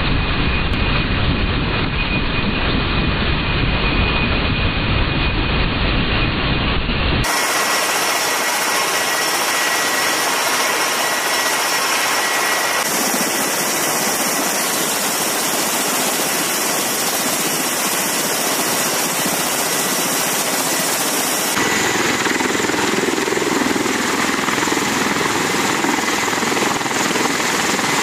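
MV-22B Osprey tiltrotor engines and rotors running: a loud, steady noise. It changes abruptly twice, losing its low rumble about seven seconds in and shifting again about twenty-two seconds in.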